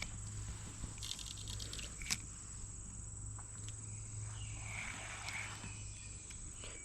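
Quiet creekside ambience: a steady high-pitched insect drone, with a few faint clicks.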